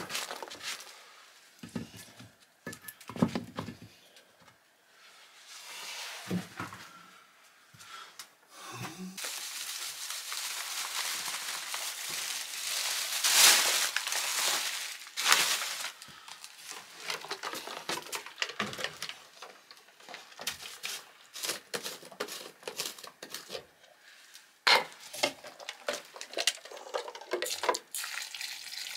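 Dry powder poured from a crinkling paper bag into a metal pot, a long hiss loudest about halfway through, among scattered knocks and scrapes. Near the end water starts pouring into the pot from a plastic jug.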